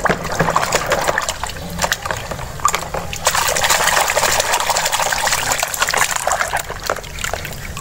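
A hand scrubbing a plastic toy in a tub of foamy water, the water sloshing and splashing throughout with bursts of small crackling splashes.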